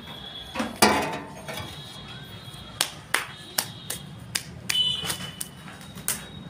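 A loud knock about a second in, then a run of sharp taps, roughly two to three a second.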